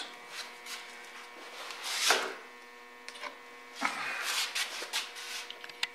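Metal tools being handled on a surface grinder's chuck: scattered clicks and short rubbing scrapes, the loudest about two seconds in, over a steady electrical hum.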